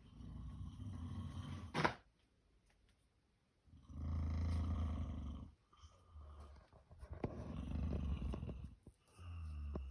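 A person snoring in sleep: four low snores, each lasting one and a half to two seconds, about every three seconds. The first snore ends with a brief sharp sound.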